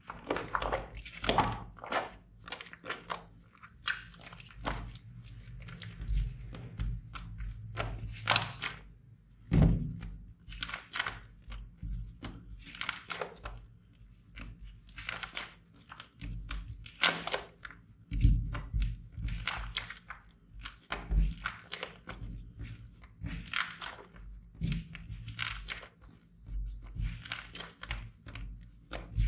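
Slime being worked by hand, pressed, poked and squeezed, giving an irregular run of short, sharp pops and squishes, about two a second.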